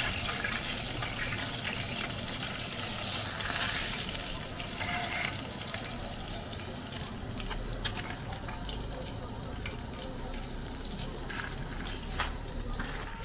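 Plantain fish pies frying in hot groundnut oil, a steady sizzle, with a couple of sharp clicks.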